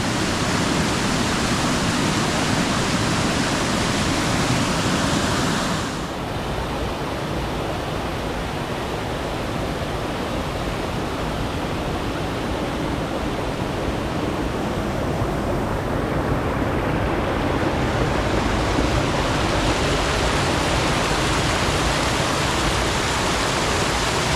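Waterfall rushing in a steady, dense roar of falling water. Its brighter hiss drops away suddenly about six seconds in and builds back up over the second half.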